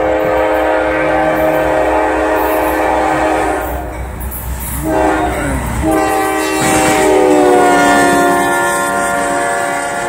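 Diesel freight locomotive's multi-chime air horn sounding a chord for a road crossing: a long blast, a short blast about five seconds in, then another long blast.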